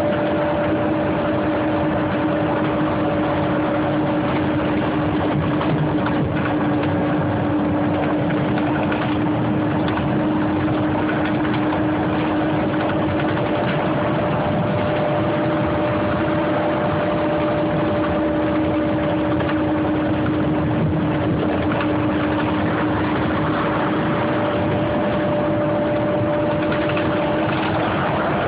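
City bus running, heard from inside the cabin: a steady mix of engine and road noise with a constant two-note hum.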